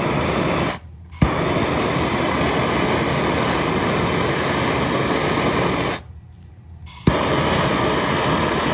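Gas torch flame running with a steady rushing hiss while heating gun barrels for silver soldering. It shuts off twice, about a second in and again about six seconds in, and each time relights with a sharp click.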